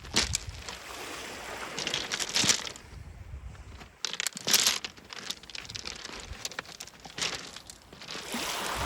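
Beach pebbles crunching and clattering, irregular with many short sharp clicks.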